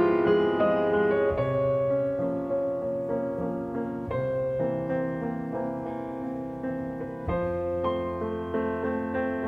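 Background piano music: sustained notes and chords, with new chords struck about every three seconds.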